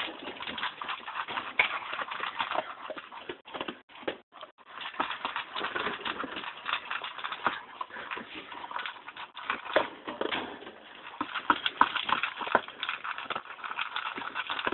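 A dog eating dry kibble fast from a plastic slow-feeder bowl: dense, rapid crunching and clicking of kibble in the bowl, with a short break about four seconds in.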